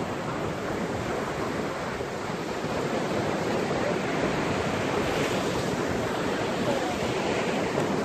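Sea surf: small waves breaking and washing up a sandy beach in a steady rush that swells slightly about five seconds in.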